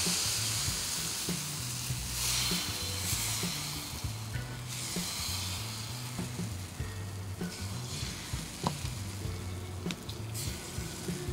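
Wheat dosa batter sizzling on a hot iron tawa as it is ladled on and spread, the hiss coming in surges, strongest in the first few seconds and again near the end.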